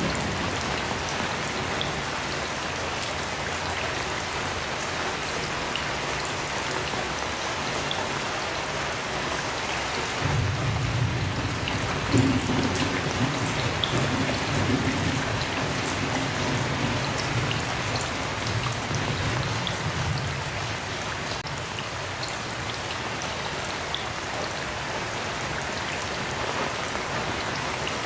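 Heavy rain falling steadily, with a long low roll of thunder that comes in about ten seconds in, peaks soon after and dies away about ten seconds later.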